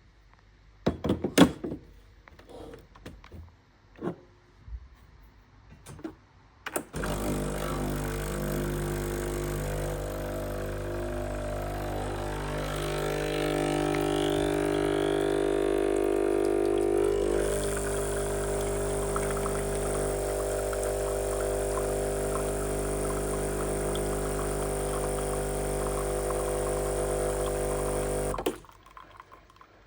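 A Sage coffee machine running with a steady motor hum for about twenty seconds, starting and stopping abruptly, with a hiss joining in about halfway. A few clicks and knocks come before it starts.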